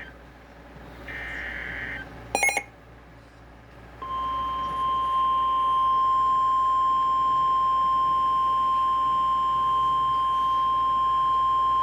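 Emergency alert broadcast: a short raspy burst of digital alert-header data about a second in and a sharp click, then the steady single-pitch warning alarm tone near 1 kHz, the NOAA Weather Radio 1050 Hz alert tone, starting about four seconds in and holding unbroken.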